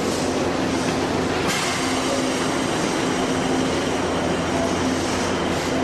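A sudden air hiss ("pshoo") about a second and a half in that keeps going: the E259 series Narita Express releasing the coupled electrical circuits and gangway connection between its two sets during uncoupling. A steady hum runs underneath.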